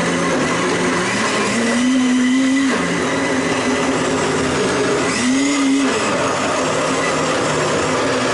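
Countertop blender running at full speed, churning a thick liquid seasoning. Its motor pitch rises and drops back twice, about two seconds in and again around five seconds.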